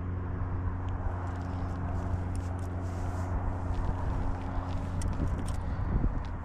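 Steady low machine hum, even and unchanging, with a few faint clicks about five seconds in.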